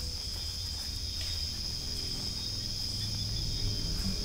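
Steady, high-pitched drone of an insect chorus in forest, unbroken throughout, over a low rumble.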